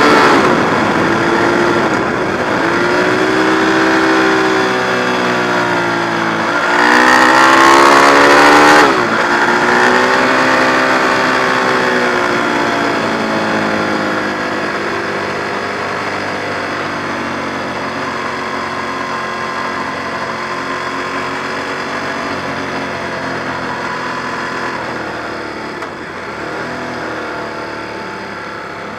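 Ducati 1098's L-twin engine heard from on board, its note falling and rising with the throttle. About seven seconds in the revs climb hard, then drop away. After that the engine settles into quieter, steadier running as the bike slows.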